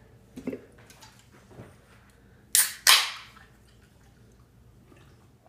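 A soda being opened: two sharp pops of hissing carbonation about two and a half seconds in, close together, each dying away quickly.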